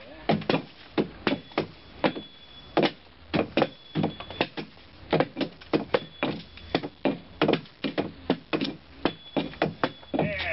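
Axe blows chopping into the wooden hull of a dugout canoe, a quick, irregular run of sharp strikes about two or three a second, as the wall is thinned and its hump knocked down.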